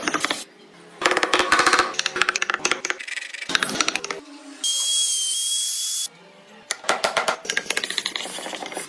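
Wood being worked with carving tools, heard in short, abruptly cut bursts of rapid scraping and tapping strokes. For about a second and a half in the middle, a steady high-pitched whine with hiss sounds and then stops.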